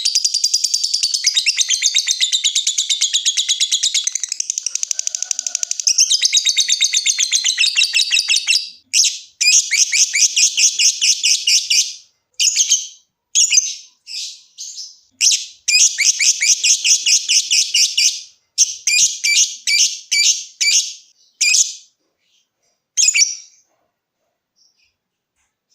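Lovebird giving its rapid, high-pitched chattering trill (the 'ngekek' call), at about eight notes a second. It is unbroken for the first eight seconds or so, then breaks into short bursts of a second or two with pauses between them, and goes mostly quiet near the end.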